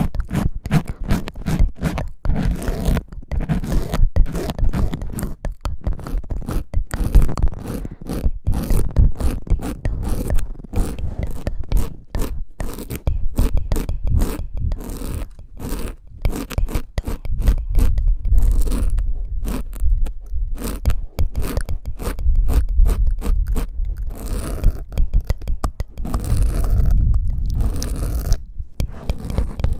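ASMR ear cleaning: an ear pick scraping rapidly in quick, repeated strokes close to the microphone, several a second, with a deep rumble under them.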